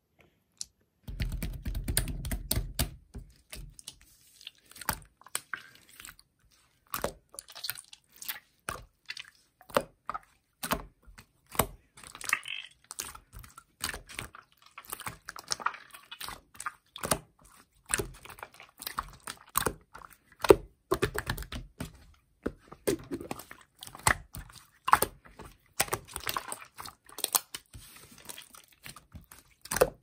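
Clear slime being stretched, pressed and squeezed by hand, giving a rapid run of sticky clicks and little pops of trapped air. A heavier, lower squelch comes in the first couple of seconds.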